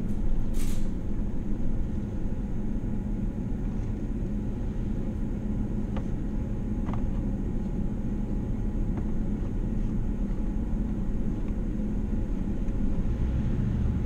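Steady low rumble of a car's engine and tyres, heard from inside the cabin while driving, with a couple of faint ticks.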